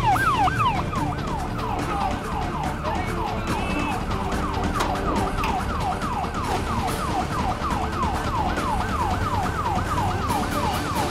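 Police siren in a fast yelp: quick repeated falling sweeps, about three a second, over a low rumble.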